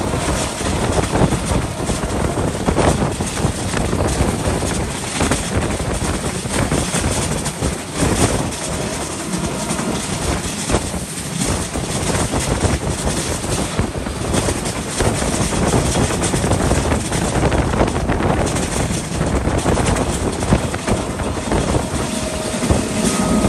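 Passenger train running at speed, heard at an open carriage window: a loud, steady rush of wheels on the rails and air streaming past.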